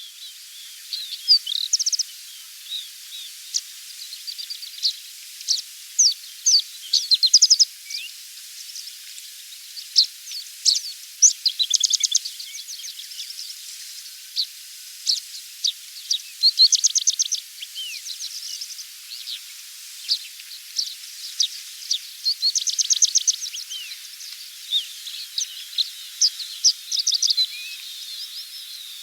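Several small birds chirping and trilling in quick, overlapping phrases, with many rapid trills throughout, over a steady high hiss of countryside background.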